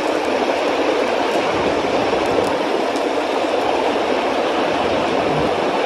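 Steady rushing of river water, an even hiss running over rocks.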